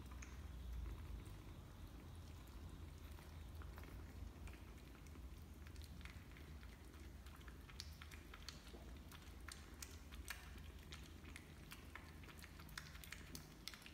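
Persian kittens lapping soup from plates: faint, quick wet clicks and smacks, getting busier about halfway through.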